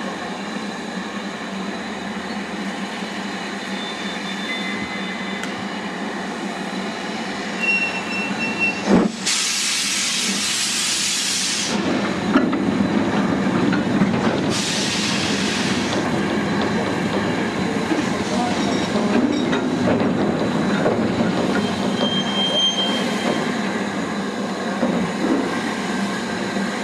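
Steam locomotive 48305, a BR Class 8F 2-8-0, with its train of mineral wagons: a steady rumble and hiss, broken by two loud blasts of steam hiss, one about nine seconds in lasting nearly three seconds and a shorter one a few seconds later.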